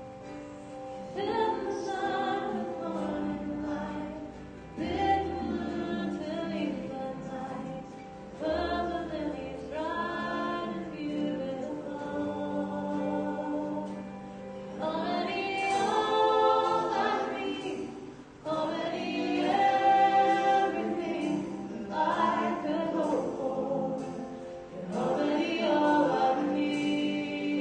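Contemporary worship band playing a song: a woman singing lead with other voices joining, over guitars, keyboard and bass.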